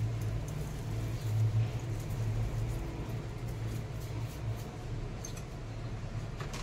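Steady low background hum with a few faint clicks near the end.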